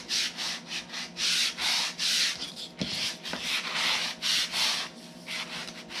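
Sanding block, basically a nail file, rubbed in quick back-and-forth strokes along the edge of a napkin-covered board, abrading away the excess paper napkin. About three strokes a second, with a brief lull and a couple of small clicks midway, and lighter strokes near the end.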